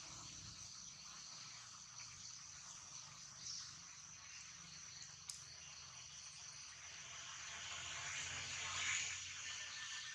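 Faint outdoor ambience with a steady, high-pitched drone of insects. There is one sharp click about halfway through, and a louder swell of hiss near the end.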